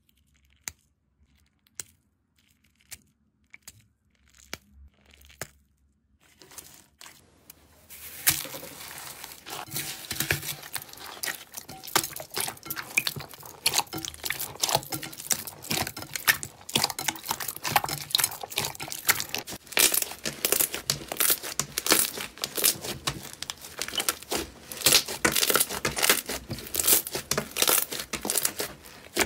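Hands working slime. First come a few sparse, sharp crinkles and clicks as foil-wrapped balls are squeezed. From about eight seconds in there is dense, loud crackling and popping as slime is stretched and pressed.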